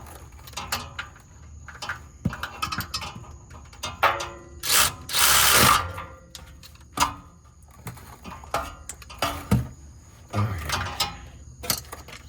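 Ratchet wrench clicking and metal tools clattering during work on a car engine, with a louder noisy burst lasting about a second about five seconds in.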